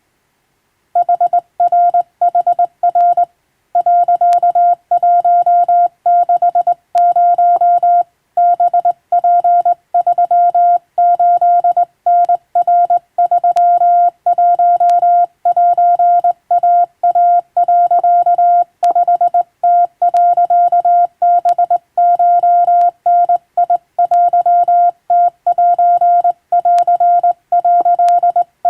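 Hand-keyed Japanese (wabun) Morse code: a steady mid-pitched tone switched on and off in short and long elements, starting about a second in, with brief gaps between characters.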